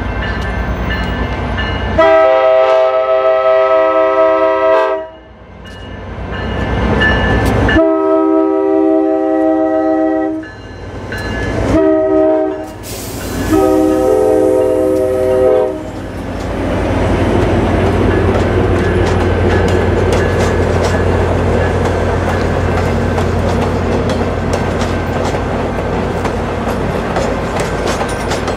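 Diesel locomotive's five-chime K5LA air horn sounding two long blasts, a short one and a long one: the standard grade-crossing signal. It plays over the low rumble of an EMD F40PH passenger locomotive. After the last blast the passenger cars roll past with a steady rumble and wheel clickety-clack.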